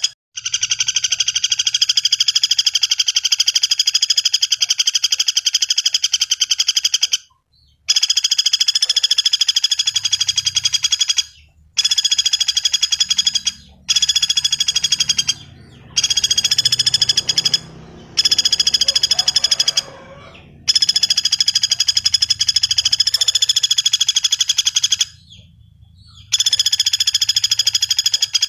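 Pelatuk bawang (common flameback woodpecker) calling in long, rapid rattling trills. The trills come one after another, each lasting a few seconds, with brief pauses between them.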